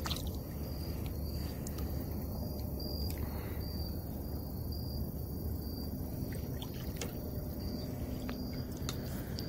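Open-water ambience around a kayak: faint water trickling and lapping over a low steady rumble, with a few light clicks. A faint high chirp repeats evenly throughout.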